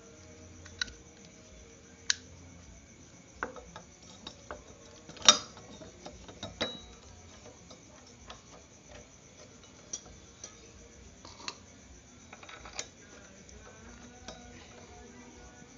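Small metal parts of a Honda Scoopy's front disc brake caliper clicking and clinking as they are handled and fitted by hand. The clicks come at irregular moments, the loudest about five seconds in.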